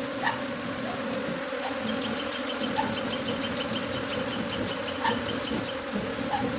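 Swarming honeybees buzzing: a steady drone of many bees in flight. From about two seconds in to nearly six seconds, a rapid run of high ticks or chirps sounds over the buzzing.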